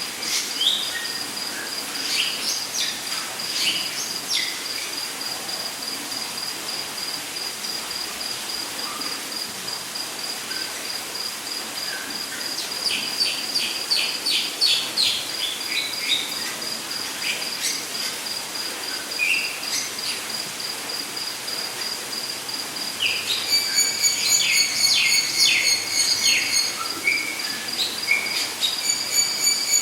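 Rainforest ambience: a steady, high, pulsing insect trill with scattered short bird calls and chirps. About three-quarters of the way in, a louder pulsed call joins in and runs on.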